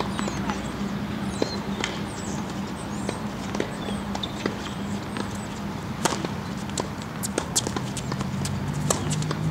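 Tennis ball bounced on a hard court before a serve, then sharp racket-on-ball hits about six seconds in as the serve is struck and the rally starts. Birds chirp in the first half, over a steady low hum.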